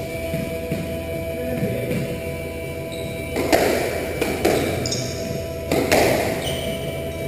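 Squash ball struck by rackets and smacking off the court walls: a few sharp hits between about three and six seconds in, over steady background music.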